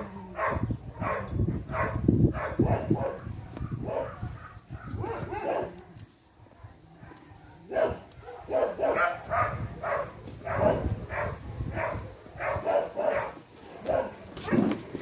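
Dog barking repeatedly in quick runs of barks, breaking off for a moment about six seconds in and then starting again.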